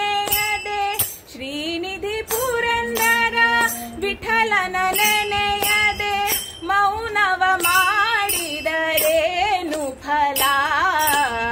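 A woman singing a Kannada devotional song, a long wordless line that glides and wavers in pitch, over regular metallic jingling strikes keeping the beat.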